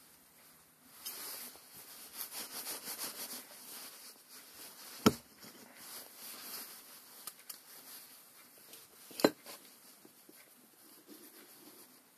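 Hands working with tractor transmission parts: rustling and rubbing, then two sharp knocks, about five and nine seconds in.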